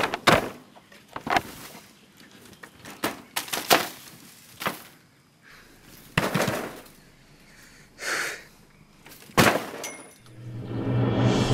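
Bamboo window slats and a woven bamboo wall being knocked and shaken by hand: a series of irregular hard knocks and rattles. Music comes in near the end.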